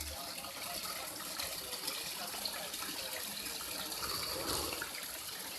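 Water running steadily, the rushing of a small mountain stream at a river's headwaters.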